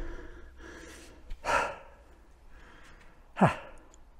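A person's breathy sigh, then about two seconds later a short grunt that falls sharply in pitch.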